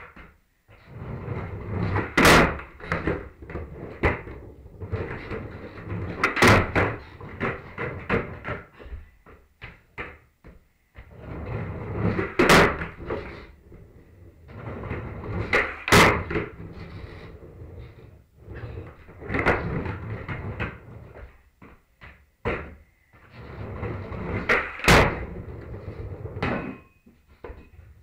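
Skateboard rolling on wooden floorboards, its wheels rumbling, with sharp wooden clacks of the board hitting the floor about six times as tricks are popped and landed.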